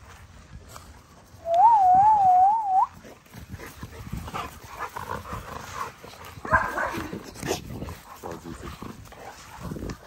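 American bully puppies playing: a loud, wavering whine starting about a second and a half in and lasting about a second and a half, then quieter scuffling and short rough noises from the puppies.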